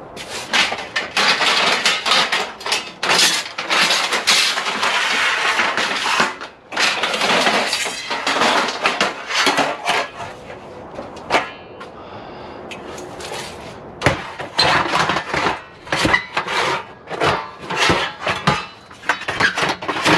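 Lengths of extruded 6063 aluminum clattering and rattling against each other as they are pulled from a pile and handled, dense and continuous in the first half, then a run of separate sharp clanks in the last several seconds.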